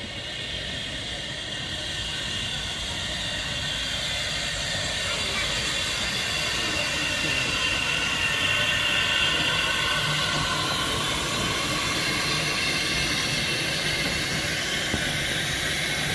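1941 Andrew Barclay saddle tank steam locomotive running into the platform with its train, steam hissing over the rumble of wheels on rail. The sound grows louder over the first several seconds as the engine draws alongside, then holds steady.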